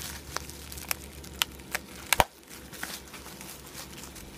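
Bubble wrap crinkling as it is unwrapped by hand, with scattered sharp crackles, the loudest a little after two seconds in.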